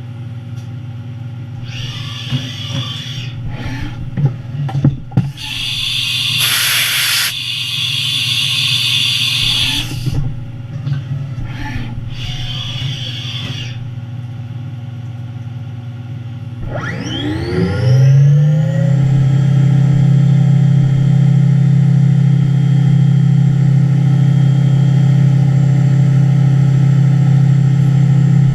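Haas 5-axis CNC mill running with a steady low hum, broken by several bursts of hissing noise in the first half, the longest lasting about four seconds. About 17 s in, the spindle spins up: a quickly rising pitch that settles into a loud, steady tone.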